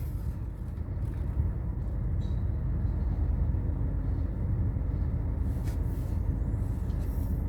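Vehicle engine idling in stopped traffic, a steady low rumble heard from inside the cabin.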